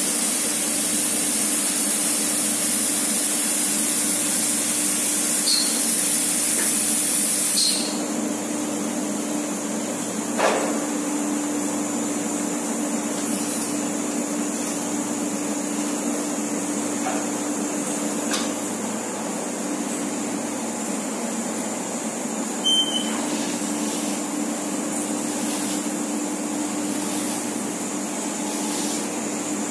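Statec Binder big bag filling station's automated pallet-handling machinery running with a steady hum. A loud high hiss cuts off suddenly about eight seconds in, and a few short clunks and clicks follow as the machine moves.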